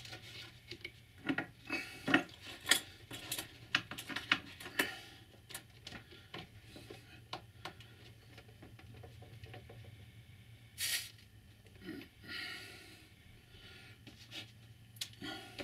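Small handling sounds of soldering dropper wires onto copper tape on a model railway baseboard: light clicks, taps and rubbing of fingers and tools, many close together in the first few seconds, then a couple of brief hissy rustles later, over a faint steady low hum.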